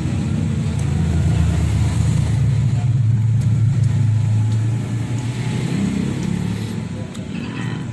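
A low engine rumble that builds over the first few seconds, then eases off.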